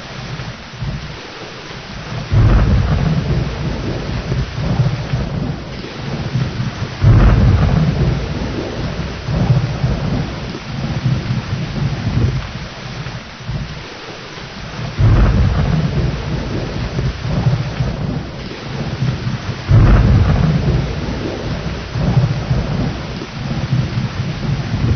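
Thunderstorm: steady heavy rain with rolling thunder, the rumbles swelling sharply four times, about 2.5, 7, 15 and 20 seconds in.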